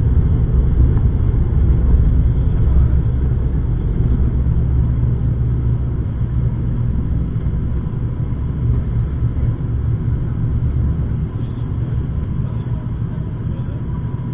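ATR 72 twin turboprops at take-off power heard inside the cabin: a loud, steady low propeller drone mixed with runway rumble. The sound eases gradually as the aircraft rotates and lifts off.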